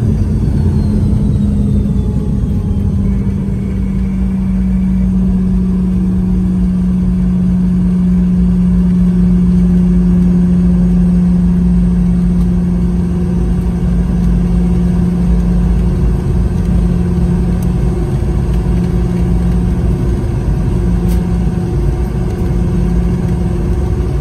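Inside the cabin of a Boeing 717-200 slowing and taxiing after landing: the steady low rumble and hum of the jet and its tail-mounted engines. A faint high whine falls in pitch over the first few seconds.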